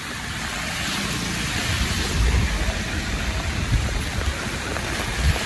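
Rain falling on a wet city street with traffic: a steady hiss of rain over a low, uneven rumble of vehicles.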